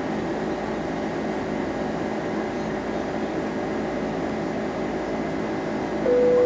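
Steady cabin noise inside an Airbus A310-308 in flight: its General Electric CF6 turbofan engines and the rush of air make an even hum with a faint steady drone in it. About six seconds in, a single clear tone sounds and holds for about a second.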